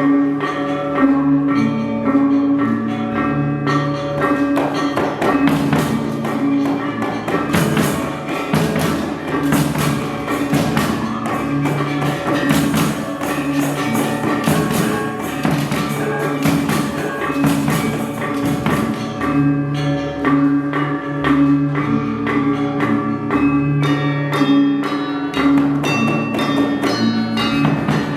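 Balinese gamelan gong ensemble playing a tabuh telu piece: ringing bronze metallophones and gongs in dense interlocking patterns, with rapid cymbal strikes and drumming over them.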